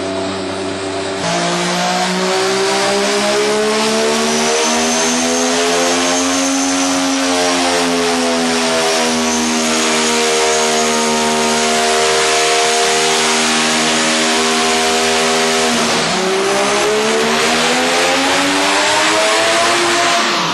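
Mazda 20B three-rotor rotary engine in a sandrail running hard under load on a dyno. It steps up in level about a second in, then its pitch climbs slowly and holds high. Around three quarters of the way through, the pitch drops briefly before rising again, with a thin high whine above the engine.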